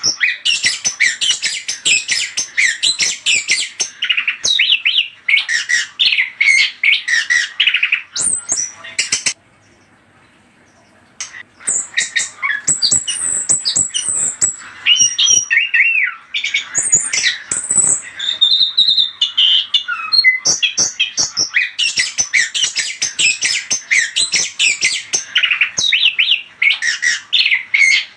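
Chestnut-capped thrush (anis kembang) song used as a lure recording: a fast, dense run of high chirps, squawky notes and whistles, broken by a pause of about two seconds about nine seconds in.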